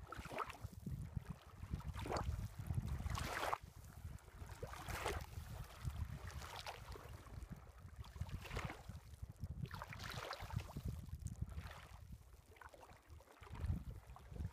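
Small waves lapping on a stony lake shore, a soft wash every second or two, over a constant low rumble of wind on the microphone.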